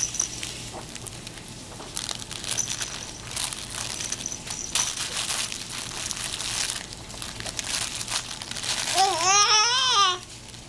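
Soft fabric baby blocks being handled and shaken, making irregular rustling and crinkling. About nine seconds in, a baby lets out a loud, wavering squeal lasting about a second.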